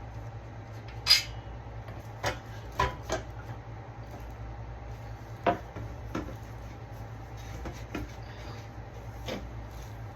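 Scattered knocks and clicks of table parts and screw hardware being handled during dining-table assembly, the sharpest about a second in, over a steady low hum.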